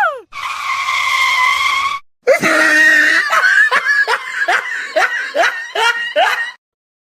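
A voice giving a held cry, then after a short break a rapid run of short rising yelps, about two a second, like laughter.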